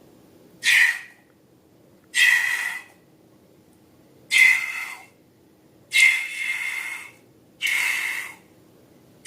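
A series of five short airy hisses, about a second and a half apart, each carrying a faint whistling tone.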